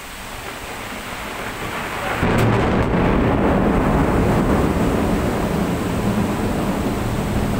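Thunder rolling over heavy rain: a deep rumble builds over the first two seconds, jumps sharply louder about two seconds in and keeps rolling over the steady hiss of the downpour.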